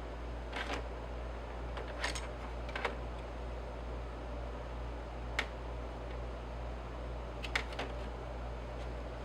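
About half a dozen light, sharp clicks and taps at uneven intervals over a steady low hum and hiss.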